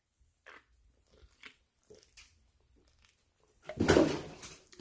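A person gulping soda from a can, a string of faint swallows about every half second, then a loud burp near the end.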